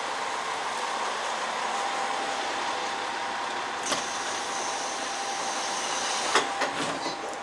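Chizu Express HOT3500-series diesel railcar idling at a platform with a steady hum. About four seconds in, a click as its door-open button is pressed, then a high tone for about two seconds, and a few knocks and clatters as the door slides open.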